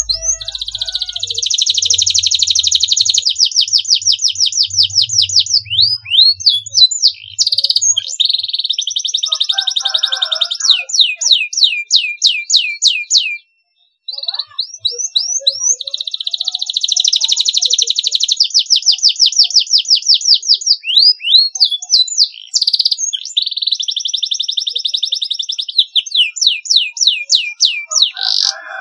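Domestic canary singing: long, high-pitched runs of fast trills and rolls, with a brief break about halfway through before the song starts again.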